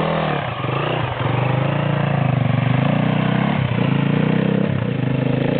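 Off-road motorcycle engine running; its pitch shifts in the first second, then holds at a steady, pulsing idle with two brief dips.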